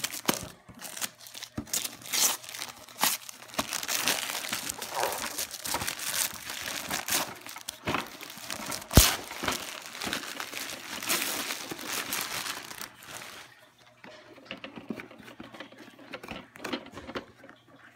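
Gift wrapping paper being torn and crumpled by hand, an irregular run of crinkling and ripping, with one sharp knock about nine seconds in. The rustling grows quieter and sparser over the last few seconds.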